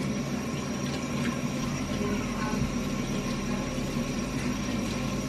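Kitchen tap water running into a sink during dishwashing, over a steady low hum.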